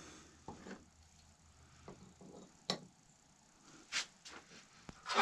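A few faint, scattered metallic clicks and light knocks: a steel flintlock barrel and center punch being handled and set against a small steel bench block before the punch is struck.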